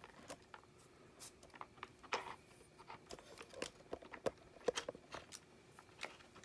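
Faint, scattered clicks and taps of hard plastic as ferrets nose and paw at the sliding covers of a plastic cat treat puzzle.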